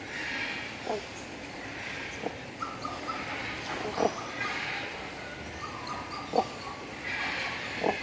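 Crowned cranes calling: short, sharp calls about every one to two seconds, with a few brief held notes between them, over a thin, steady high-pitched hum.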